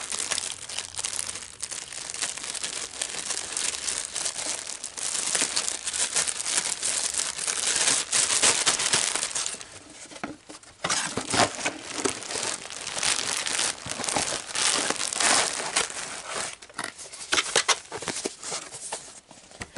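Packaging crinkling and rustling as it is handled, in dense crackly bursts with a brief lull about ten seconds in.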